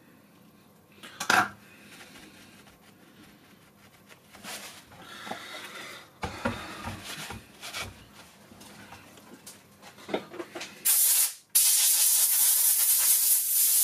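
Light clicks and clattering of tools and the circuit board being handled, then, about eleven seconds in, compressed air hissing in a short burst and then a longer steady blast, blowing stray solder balls off the freshly soldered board.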